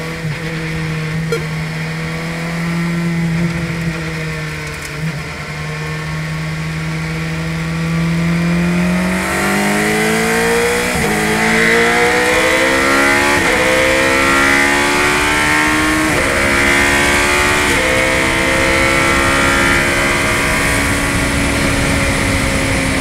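Radical SR8 race car's compact 2.7-litre V8 holds steady revs for several seconds, then accelerates hard through its sequential gearbox. The pitch climbs and drops sharply four times at the upshifts, about every two seconds, while a rushing noise builds with speed.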